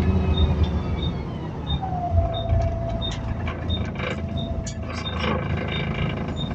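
Interior of a Volvo B7TL double-decker bus with a Voith gearbox, slowing down: the engine rumble eases and a whine falls slowly in pitch, while the body creaks and rattles. A small high beep repeats about every two-thirds of a second.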